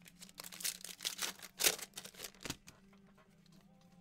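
Rustling and crinkling of trading cards and pack wrappers being handled during a box break, a quick run of scrapes over the first two and a half seconds that then dies down. A faint steady hum runs underneath.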